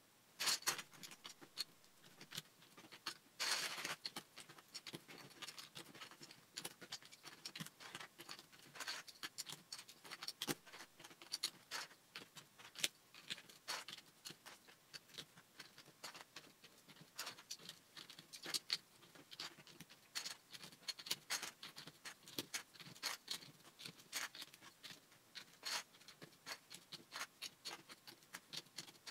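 Plastic Lego bricks clicking and snapping as they are picked up and pressed together by hand, in many small irregular clicks, with a denser rattling stretch about three and a half seconds in.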